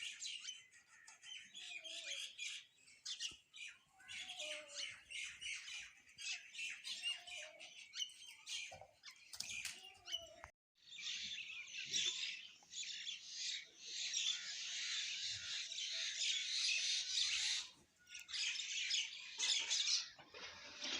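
Many small birds chirping and squawking together in a dense, busy chatter. It cuts out briefly about ten seconds in, then resumes fuller and more continuous.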